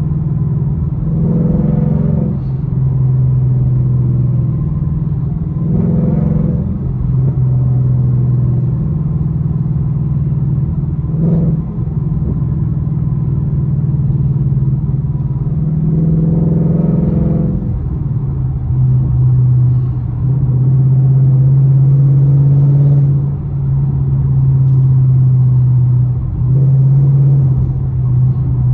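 Ford Mustang GT's 5.0 L V8 with a loud exhaust, heard from inside the cabin while driving: a steady deep drone that swells several times as the engine is revved up under acceleration.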